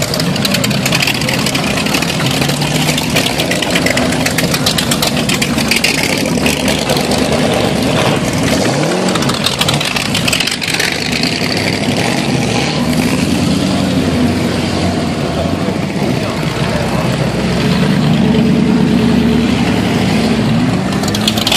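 A string of motorcycles riding past one after another, their engines running and revving, with a rise and fall in pitch about nine seconds in and again near the end.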